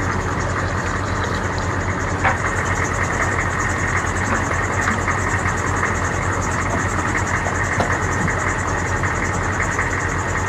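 Water pouring steadily into a fresh-water tank through its outside fill inlet, a continuous splashing rush over a low steady hum.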